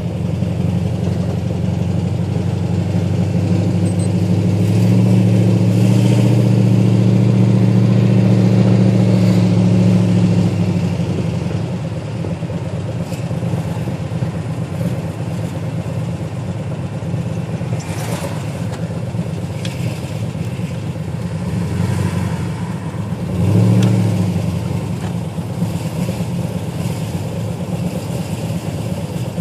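Pontiac GTO V8 engine running, louder for several seconds early on before settling back to a steady idle, with a short throttle blip about three-quarters of the way through. Under it is a tick that the owner thinks is a bad lifter.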